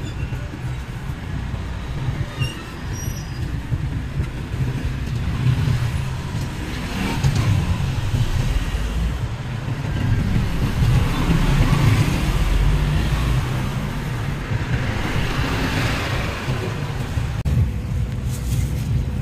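Road traffic going by: a steady low rumble of passing vehicles.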